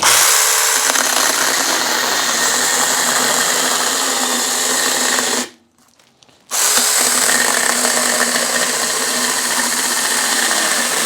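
A cordless 4-inch mini electric chainsaw cutting through a hardwood log. The saw stops suddenly about halfway through the cut and is silent for about a second, then starts again and runs on until it stops near the end. The owner puts the stall down to pushing too hard on the saw, and wonders whether it was a safety cut-out.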